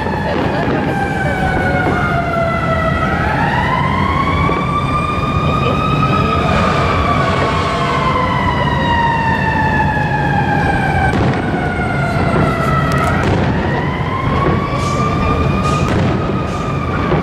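Emergency vehicle siren in a slow wail: the pitch falls slowly, climbs quickly back up, then falls slowly again, twice over, above a steady low background rumble.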